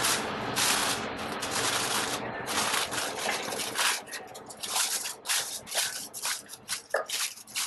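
Aluminium foil crinkling and rustling as gloved hands smooth it out and fold it down over a baking tray. A dense, continuous rustle for the first few seconds breaks into short, irregular crackles in the second half.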